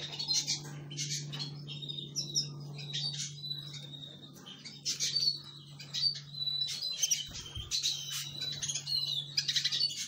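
Canaries and other small finches chirping and twittering in short, scattered calls while feeding, over a steady low hum.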